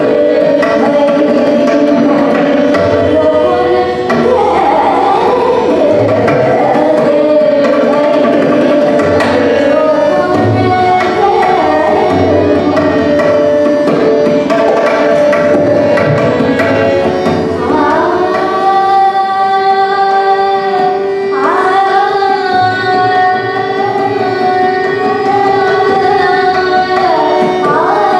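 Hindustani classical vocal music: a woman singing with tabla accompaniment. From about two-thirds in she holds long notes, sliding up into each one.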